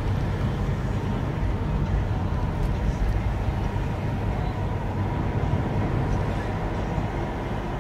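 Car driving along a road: a steady engine and tyre rumble.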